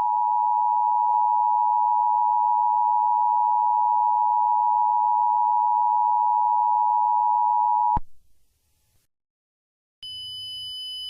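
Emergency Alert System attention signal: the two-tone alarm, two close pitches sounding together as one steady tone for about eight seconds, then cutting off suddenly. After a short silence, a fainter high-pitched steady tone with a low hum comes in near the end.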